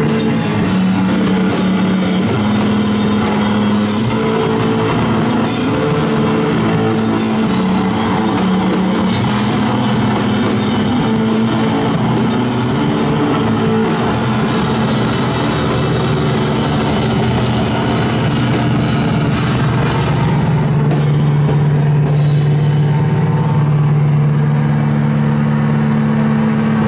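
Live rock band playing loud: electric bass and a drum kit with frequent cymbal crashes. After about twenty seconds the cymbal crashes thin out and long held low notes ring on.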